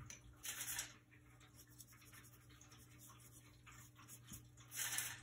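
Wet paintbrush working on paper and dabbing marker ink off crumpled tin foil: faint brushing and rustling, with two louder scratchy swishes, one about half a second in and one near the end.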